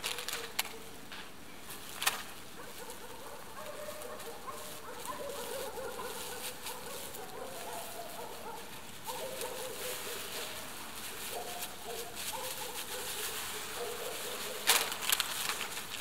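A small wooden bird feeder being knocked to empty it: a few sharp knocks, the loudest near the end. Under them, an animal keeps up thin wavering calls.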